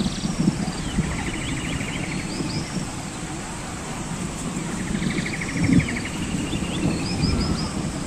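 Outdoor ambience with a low steady rumble, over which birds call: two rattling trills and a few short high chirps.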